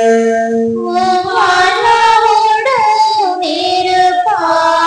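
A congregation of higher women's and children's voices singing the chanted response to the priest's greeting at Mass, slow with long held notes. A man's voice holds a low note through the first second before the congregation comes in.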